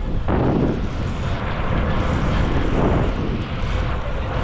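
Steady rushing noise, deepest in the low end, of wind buffeting the microphone while cycling, with road noise underneath.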